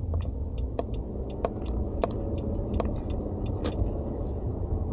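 Car in motion, heard from inside the cabin: a steady low engine and road rumble, with scattered small clicks and ticks.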